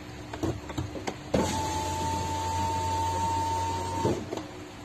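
Seat Leon Mk3 electric window motor lowering the door glass in one steady run of about three seconds, with a constant whine and a low hum, stopping suddenly. A few clicks of the window switch come before the motor starts. The switch still has a fault and works only intermittently.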